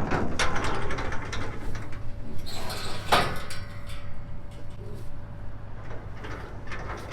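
Rattling and knocking of metal livestock gates and doors, with a louder clatter about three seconds in.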